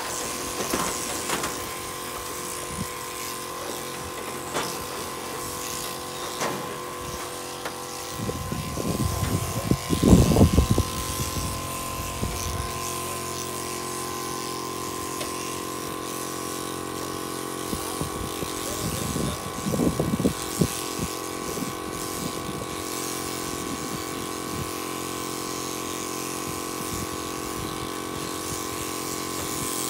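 Electric sheep-shearing handpiece and its overhead motor running steadily as a ram's fleece is shorn. Two louder stretches of knocking and rustling, about ten seconds in and again near twenty seconds.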